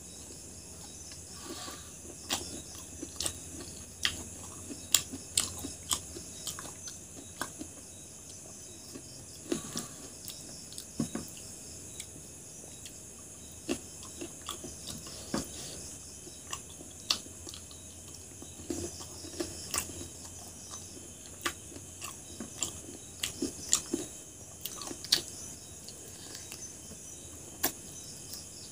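Close-up chewing and biting of a hand-eaten meal of rice and curried chicken gizzards: irregular wet clicks and crunches, some sharp. Crickets chirp steadily behind.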